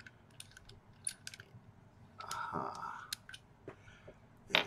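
A threaded metal section of a lightsaber hilt being unscrewed by hand: a run of small clicks as the threads turn, a grating scrape about two seconds in, and a sharp click near the end.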